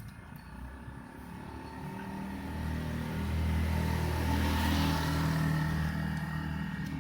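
A motor vehicle passing by: its engine grows louder to a peak about two-thirds of the way through, then fades.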